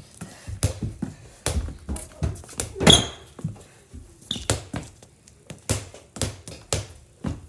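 Sneakers thudding and scuffing on a hardwood floor in quick, irregular steps, a few thuds a second, during a one-on-one mini-hoop basketball game. There is one louder, sharper sound about three seconds in.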